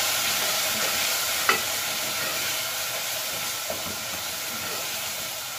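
Onion-tomato masala sizzling in the base of an aluminium pressure cooker as it is stirred with a wooden spoon. There is a single sharp knock about one and a half seconds in, and the sizzle slowly gets quieter.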